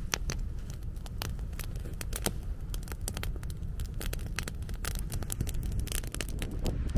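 Wood campfire of dry branches crackling, with many sharp, irregular pops and snaps over a low steady rush.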